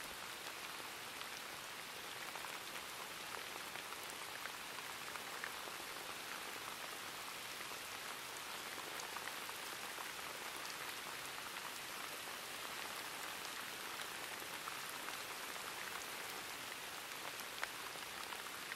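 Steady rain falling: an even hiss of rain with a few faint separate drops.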